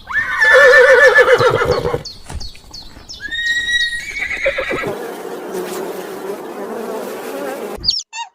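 A horse whinnying, a loud call with a quavering pitch lasting about two seconds. Assorted short calls follow, then a steady buzzing for about three seconds that cuts off suddenly near the end.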